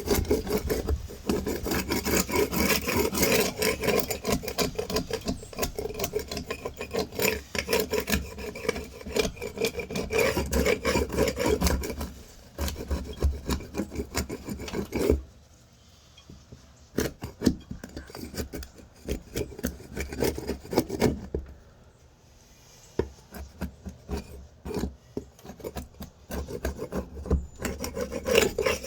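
Hand scraping of loose old paint off cedar wood: rapid rasping strokes for about the first twelve seconds, then a quieter stretch with a few scattered strokes, picking up again near the end.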